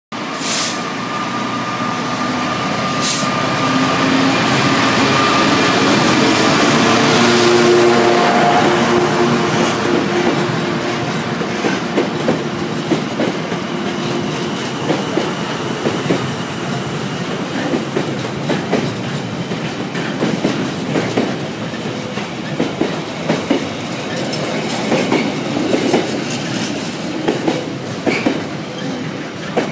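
Freightliner Class 66 diesel locomotive passing with its two-stroke V12 engine running, loudest about eight seconds in. Then the wagons of a long container train roll by, their wheels clacking on the rails.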